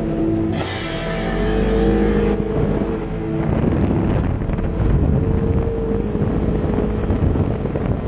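Polaris RZR XP 1000 side-by-side driving on a dirt trail: its engine runs at a steady pitch that rises and holds, mixed with wind and drive noise. Guitar music is heard over the first few seconds.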